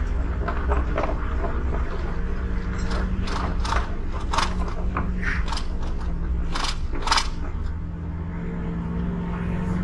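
Car tyres clattering and knocking over the loose deck boards of an old bridge, a string of sharp clacks over the vehicle's steady engine and road hum. The clacks stop about seven seconds in as the car rolls off the bridge.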